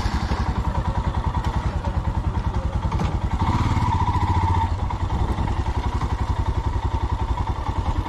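Motorcycle engine running with a fast, even low pulse, swelling louder for about a second around three and a half seconds in.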